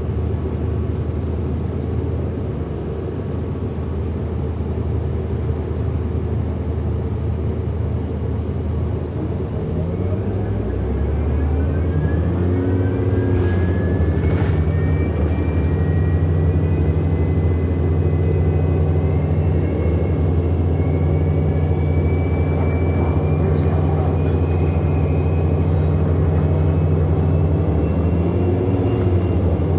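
Hybrid-electric drivetrain of a 2008 Orion NG HEV city bus, heard from on board: a steady low hum, then a high electric motor whine that starts about a third of the way in and climbs slowly in pitch as the bus accelerates.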